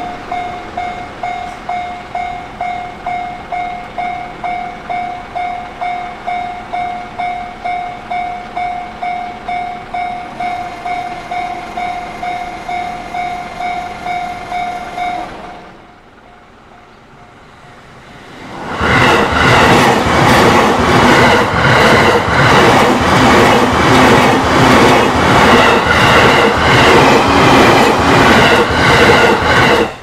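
Japanese level-crossing warning bell ringing a rapid electronic clang, about two strikes a second, which stops after about 15 seconds. After a short lull a train passes close by with loud, steady, rhythmic wheel clatter over the rail joints, which cuts off abruptly at the end.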